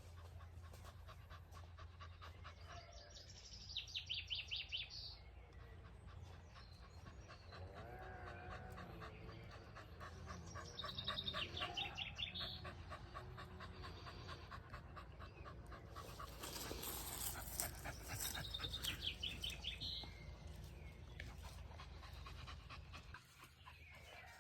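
An animal calling in the forest: three bursts of rapid, high-pitched pulsed calls, each about a second and a half long, with lower wavering calls between them.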